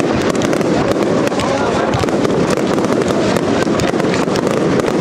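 Fireworks display of many F2 consumer firework batteries (cakes) firing at once: a dense, continuous crackling of launches and bursts with no break.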